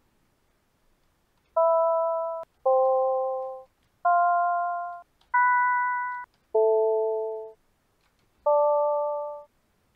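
A home-made C++ software synthesizer playing a bell-like glockenspiel tone: six notes at different pitches, each a blend of three sine tones that starts sharply and dies away over about a second, with no sustain. It comes out a bit more bell-like than the earlier attempts.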